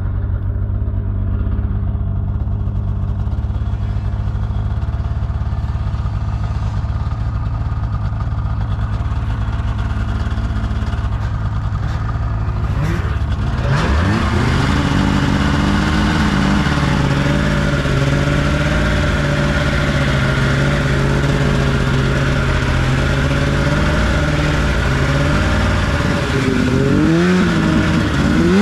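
Off-road vehicle engine running at a low steady idle, then revving up about halfway through and holding a higher, wavering engine pitch while riding, with a few more shifts in pitch near the end.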